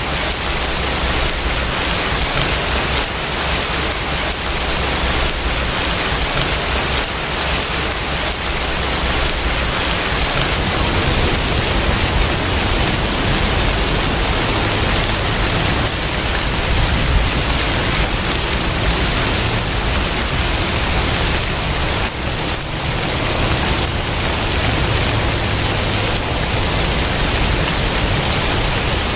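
Steady rain falling, an even, dense hiss with no let-up. A low rumble underneath grows stronger about a third of the way in.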